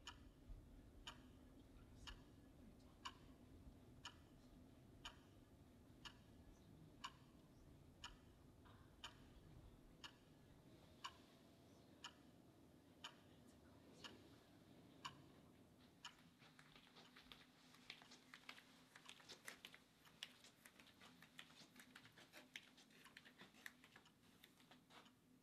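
Faint wall clock ticking once a second. About sixteen seconds in, quick irregular clicking of typing on a computer keyboard takes over, over a low steady room hum.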